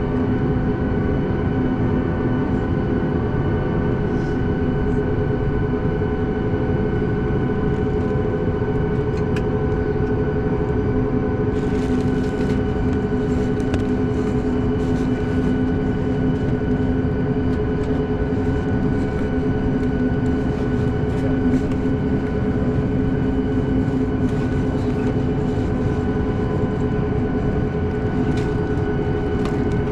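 Cabin noise of a Boeing 737 MAX 8 with its CFM LEAP-1B jet engines running steadily: an even rumble with a hum of several steady tones. From about twelve seconds in there are faint light ticks or rattles.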